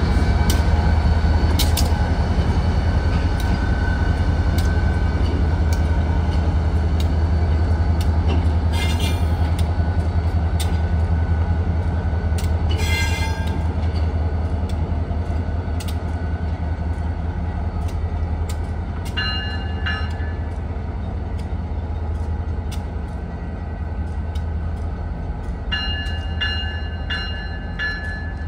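Diesel locomotives running past at low speed: a steady deep engine rumble with clicks from the wheels over rail joints. In the second half a locomotive bell rings in repeated strikes, once briefly and again near the end.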